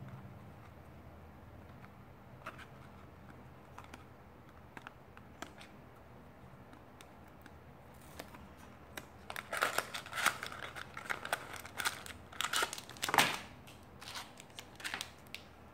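Toy blind-box packaging being handled and opened: a few light taps and clicks at first, then, from about halfway through, a run of crinkling and tearing as the box and the packet inside are pulled open, loudest shortly before the end.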